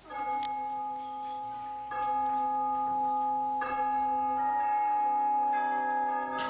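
Church bells ringing, a new strike about every two seconds, each one ringing on under the next so the tones pile up.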